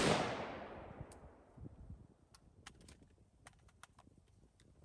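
The echo of an AR-15 rifle shot fired just before, rolling away and fading over about a second, followed by scattered light clicks and ticks.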